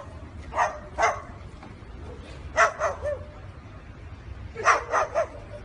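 Barking: short, sharp yaps, first a pair, then two quick runs of three.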